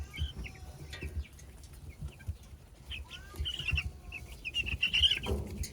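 A brood of two-week-old Cornish Cross broiler chicks peeping, many short high peeps overlapping, busiest in the second half, with low bumps and rustling as they scratch and eat.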